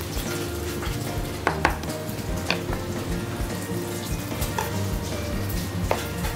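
Lemon juice squeezed into a hot frying pan of melted butter and sea bream fat, sizzling steadily with a few sharp spits and pops as the juice hits the fat, the pan juices being turned into a sauce.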